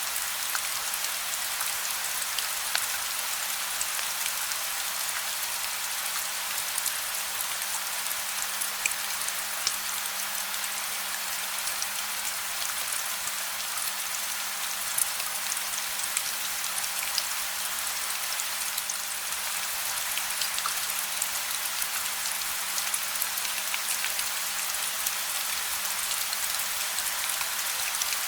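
Gentle steady rain with no thunder: an even hiss of rainfall peppered with the small ticks of individual drops striking a surface.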